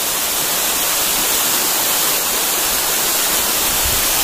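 Waterfall pouring over stepped rock ledges close by: a steady rushing hiss of falling water. A few low thumps come near the end.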